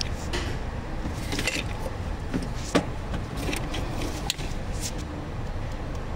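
Hand tools clicking and clinking against metal engine parts during alternator removal: scattered short clicks, one sharper near the middle, over a steady low rumble.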